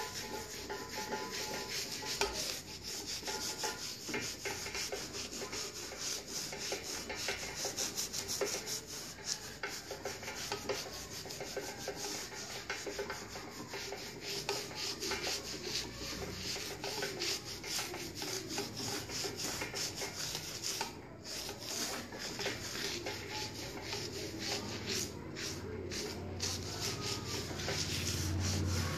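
A hand-held abrasive pad rubbing over an engraved metal wheel hub in quick, repeated back-and-forth strokes. It is wiping the black finish off the raised engraving so that the design stands out against a blackened background.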